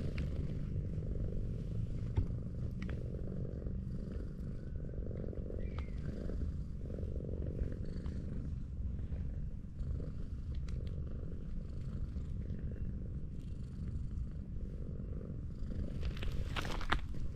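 Tortoiseshell cat purring steadily while being stroked. Near the end, a few sharper rustling sounds break in.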